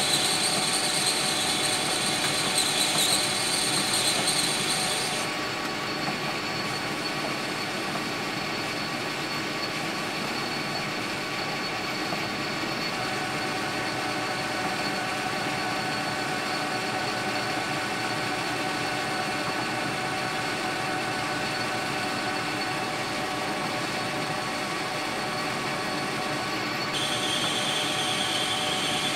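Metal lathe running, its spindle drive giving a steady whine, while a cutting tool turns down the outside of a brass sleeve. The high hiss of the cut stops about five seconds in and starts again with a new pass near the end.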